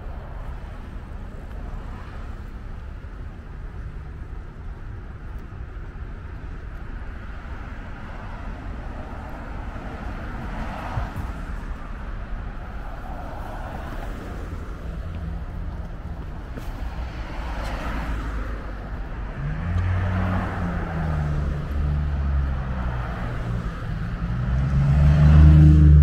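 Road traffic going by, with cars swishing past now and then. In the last several seconds a heavy engine draws near and grows loud, a deep steady hum.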